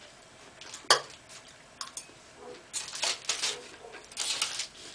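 Eating sounds: a sharp click of a utensil on a plate about a second in, two lighter clicks, then short bouts of rustling and chewing noise.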